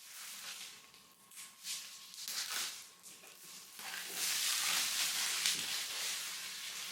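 Laptop packaging being handled: several short scrapes and rustles, then from about four seconds in a longer, continuous rustling.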